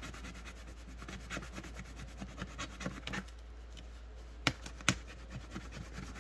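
Fingernail scratching the coating off a scratch-off circle on a paper sheet: quick, uneven rubbing and scraping strokes, with two sharper taps about four and a half and five seconds in.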